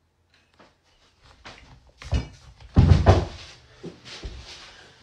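A few sudden heavy thumps about two and three seconds in, followed by lighter knocks: a person's body hitting a stone kitchen island and the floor while attempting to flip up onto it.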